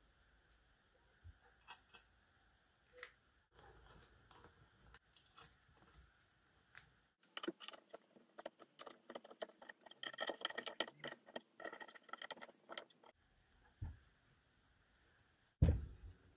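Hand screwdriver turning metal screws into an oak base: a dense run of small metallic clicks and scrapes in the middle, after a few scattered handling clicks. A single thump near the end.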